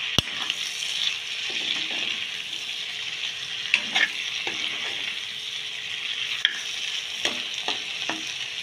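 Chunks of boiled plantain (vegetable banana), tomato and onion sizzling steadily in oil in a wok. A metal spatula stirs them, with a few sharp scrapes and clicks against the pan.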